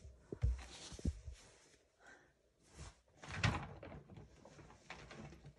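Quiet handling sounds as a pleated plaid skirt is lifted off the table: two soft low thumps in the first second or so, then a brief rustle about three and a half seconds in.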